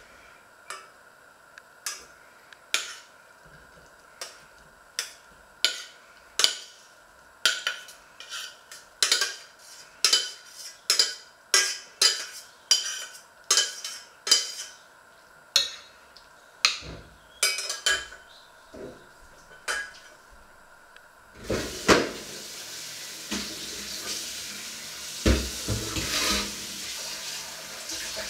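A metal utensil clinking and scraping against a stainless steel saucepan as cooked mixed vegetables are scooped out onto a plate, a sharp clink every second or so. About three-quarters of the way through, a kitchen tap starts running steadily, with a few knocks of a pan at the sink.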